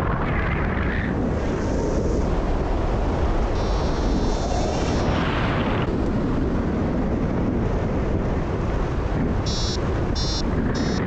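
Loud wind rushing over the camera microphone on a paraglider in fast flight. Near the end a variometer starts beeping in short, quick pulses.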